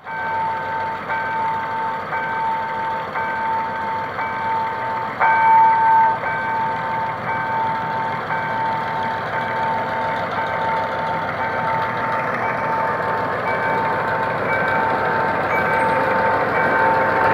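Level crossing warning alarm sounding, a pitched electronic tone pulsing on and off at a quick even rate, with a louder burst about five seconds in. Under it, the engine of a GM G22W diesel locomotive grows louder near the end as it pulls its passenger train across the crossing.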